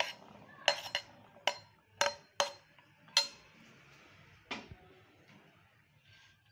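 A metal spoon clinking sharply against a glass bowl as boiled chickpeas are scraped off a cloth into it: a quick run of about eight clinks in the first three seconds and one more a little later.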